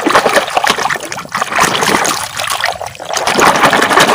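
Shallow muddy water splashing and sloshing continuously as a hand swishes a sand-caked plastic toy car back and forth to wash the sand off.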